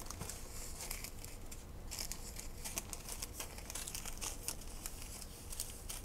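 Clear plastic bags crinkling as small zip-lock baggies of diamond painting drills are handled, pulled from a larger plastic bag and set down. The crinkling comes with many short, irregular clicks.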